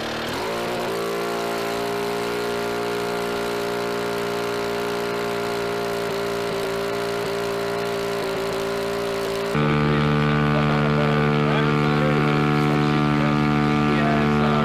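Engine of an RQ-7 Shadow unmanned aircraft running on its launcher, with a steady propeller drone after a slight wobble in speed at the start. About two-thirds in, the sound cuts abruptly to a louder, lower, steady engine drone.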